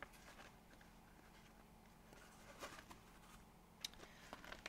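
Near silence: room tone, with a few faint rustles and clicks in the second half as a piece of cross-stitch fabric is handled.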